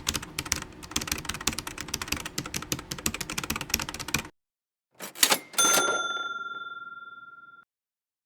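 Typewriter sound effect: rapid key clacking for about four seconds, then after a short pause a quick swish and a single bell ding that rings and fades over about two seconds.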